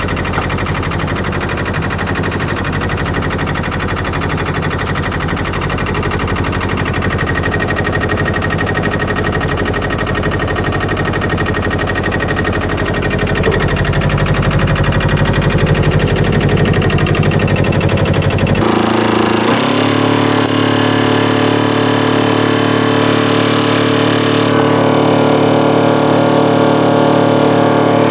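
Albin 2D marine engine running steadily as the old boat motors along. About two-thirds of the way through, the sound changes abruptly: the deep rumble drops away and a steadier, higher hum takes over.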